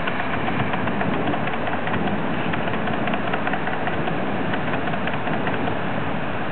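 Heavy rain falling steadily: a dense, even hiss of countless drops.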